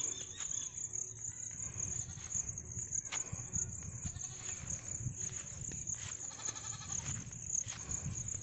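A goat bleats, a wavering call about six seconds in, with fainter calls around it. Underneath runs a steady high-pitched hiss and a low rumble.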